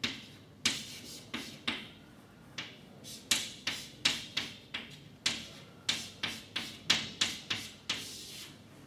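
Chalk tapping and scraping on a blackboard as an equation is written out: a quick, irregular run of sharp taps with a short pause about two seconds in.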